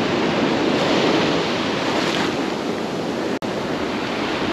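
Gulf surf washing up onto a sandy beach, a steady rushing wash with wind on the microphone. The sound drops out for an instant a little after three seconds in.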